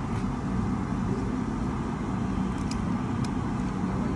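Steady low rumbling background noise, with a few light clicks of a metal fork and spoon against a metal serving tray about two and a half to three seconds in.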